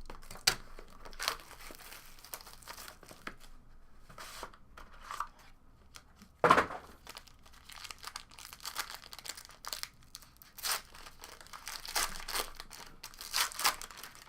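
Plastic wrapping on a trading-card box and pack being torn open and crinkled by hand: irregular crackling rustles, with one sharper, louder snap about six and a half seconds in.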